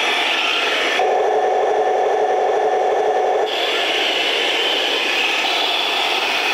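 1:16 scale RC tanks running on a concrete floor: a steady grinding scrape of tracks and drive gearing. About a second in, the sound switches abruptly to a lower, denser whirr for about two and a half seconds, then returns.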